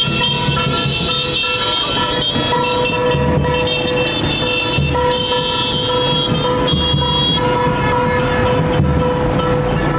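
Vehicle horns honking almost without a break, several overlapping, over running engines.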